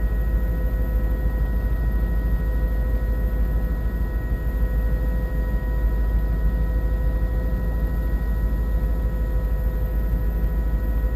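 Helicopter cabin noise picked up by a smartphone microphone: a loud, steady low drone from the rotor and engine, with a constant whine of several high tones over it.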